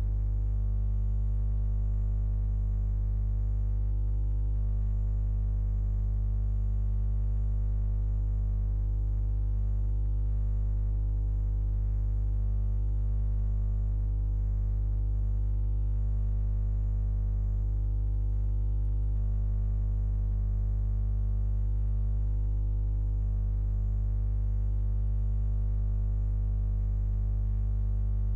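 A steady, unchanging low electronic drone with many held overtones, like one sustained synthesizer chord.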